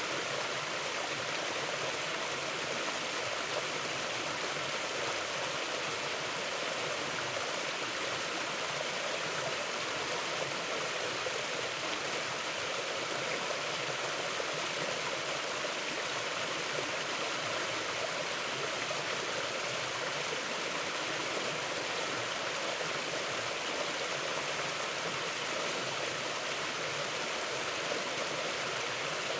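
Mountain river flowing steadily over rocks: a continuous, even rush of water with no change in level.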